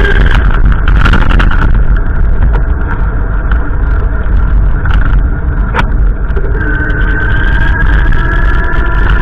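Gusty wind buffeting the microphone: a loud, continuous low rumble with faint whistling tones above it.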